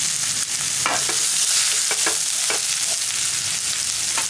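Chopped bitter gourd sizzling as it fries in oil in a pan, a steady high hiss, with a few short scrapes of stirring about one, two and four seconds in.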